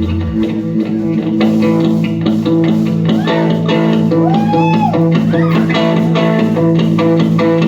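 Instrumental opening of a band's song: electric guitar and bass over steadily held notes, with a few notes gliding up and down in pitch in the middle.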